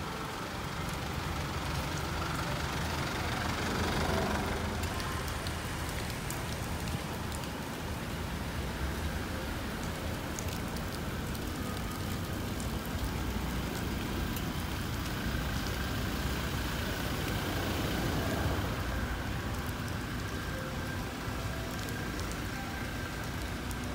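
Cars and SUVs moving slowly through a car park, engines running and tyres hissing on wet pavement, over a steady outdoor rumble.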